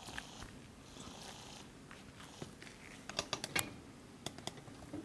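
Faint background hiss with a quick cluster of small clicks about three seconds in, followed by two more single ticks.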